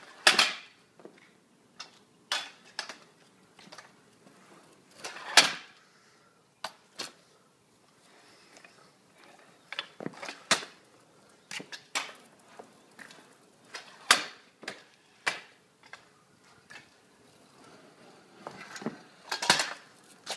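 Stunt scooter clattering on hard ground during tricks: sharp metal deck and wheel impacts every few seconds, with lighter rattles and clicks in between.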